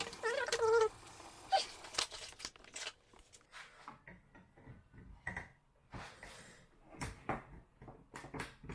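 Scattered light clicks and short scrapes of a screwdriver prising at the tight retaining spring that holds the freezer's recirculation fan blade on its motor spindle.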